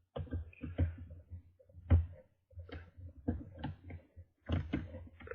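Hook pick and tension tool working in the keyway of a Master Lock No. 1 padlock: irregular small clicks and scrapes as the pins are worked, with a sharper knock about two seconds in.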